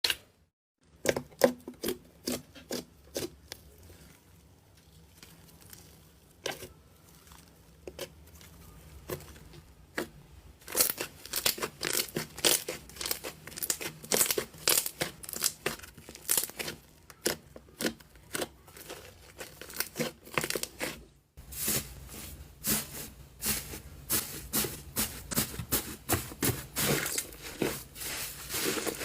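Slime being squeezed and poked by hand, a run of sticky clicks and crackles. They are sparse at first and come thick and fast from about a third of the way in.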